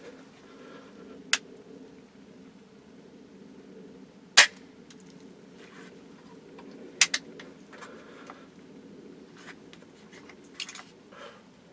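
Sharp metallic clicks and snaps from a Traditions PA Pellet flintlock rifle's lock close to the microphone: a loud snap about four seconds in, a quick double click a few seconds later, and a few more clicks near the end. No shot goes off, the sign of a failed ignition. A steady low hum runs underneath.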